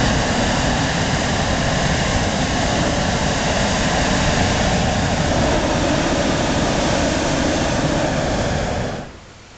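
Hot air balloon's propane burner firing in one long, steady, loud blast that stops about nine seconds in.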